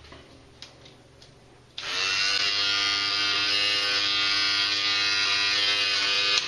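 Electric beard trimmer switched on about two seconds in, running with a steady buzz, then switched off suddenly just before the end.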